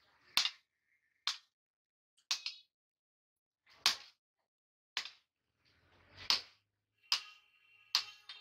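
Hammer blows on red-hot steel on an anvil as a chopper blade is forged: about eight single strikes roughly a second apart, some leaving a short metallic ring.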